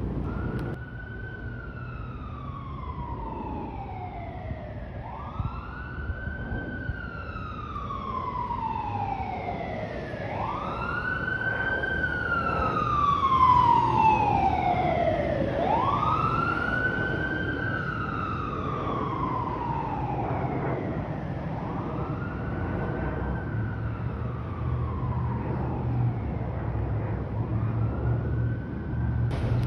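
Emergency vehicle siren on a slow wail: each cycle rises quickly and falls slowly, repeating about every five seconds, loudest in the middle and fading toward the end, over a low steady rumble.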